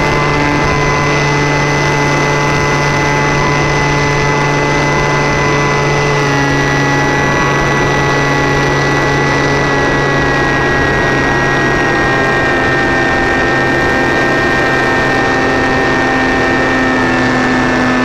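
Model Cessna 337 RC plane's motors and propellers heard up close from an onboard camera in flight: a loud, steady drone with a whine of several tones, its pitch shifting slightly a few times as the throttle changes.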